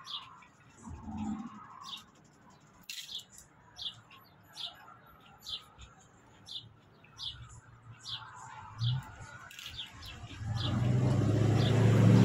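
A small bird chirping, one short high note repeated about every second. Near the end a louder, steady low hum sets in.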